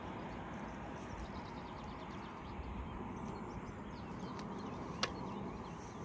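Steady low outdoor noise with faint bird chirps, and a single sharp click about five seconds in.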